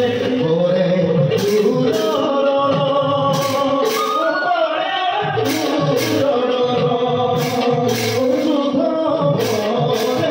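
Bhaona music: male voices singing a sustained melody over a steady beat of drum strokes and short metallic clashes of cymbals, which repeat about once a second.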